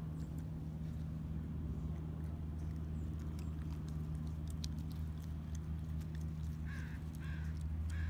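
Raccoon foraging close by, with small clicks and rustles of its paws and mouth in the grass and leaf litter, over a steady low rumble. Two short calls come near the end.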